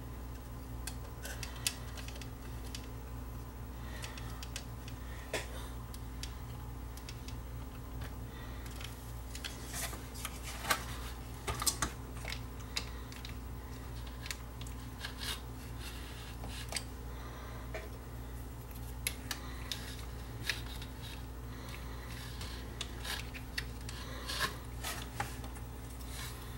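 Scattered light clicks and taps of a CD player's plastic tray-loading mechanism being handled while a new rubber drive belt is fitted over the motor pulley, over a steady low hum.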